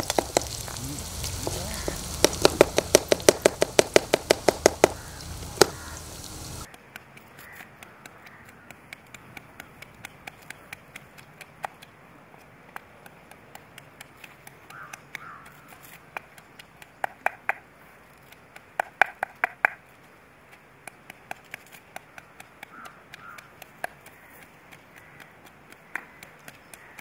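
Sliced onions sizzling in hot oil in an iron kadai while a metal ladle stirs them, clanking and scraping rapidly against the pan. After about six and a half seconds it drops to a much quieter stretch of scattered light clicks and a few short crow caws.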